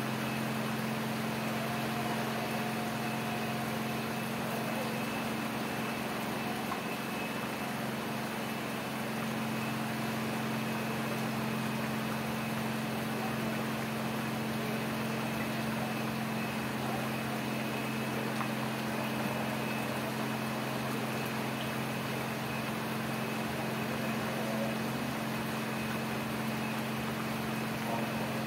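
Heavy rain falling steadily, a continuous even hiss, with a steady low machine hum underneath.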